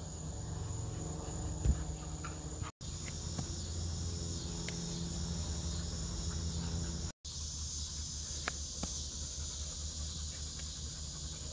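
Steady chorus of insects, an even high-pitched buzz, with a single sharp knock about one and a half seconds in; the sound cuts out briefly twice.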